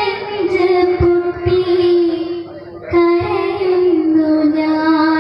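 A child singing a devotional song into a microphone, holding long drawn-out notes that step from one pitch to the next.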